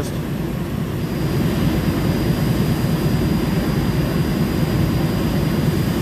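Steady low roar of running machinery. A faint, thin, high steady whine starts about a second in and holds.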